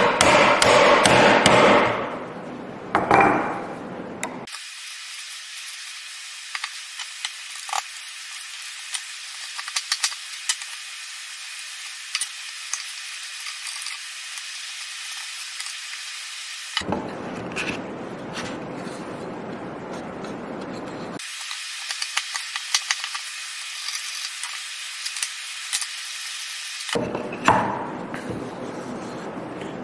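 Wood chisel cleaning out a half-lap joint: a run of loud sharp strikes in the first two seconds and another about three seconds in, then quieter paring and scraping of the wood with scattered small clicks and taps.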